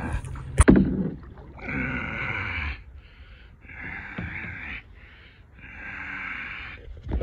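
Kayak paddle strokes: a run of water swishes as the blades dip and pull, about one every second or so, after a sharp knock near the start.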